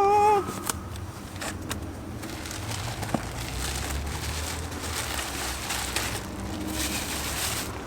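Packaging rustling and crinkling with scattered clicks as a newly delivered parcel is opened, after a brief pitched sound at the very start.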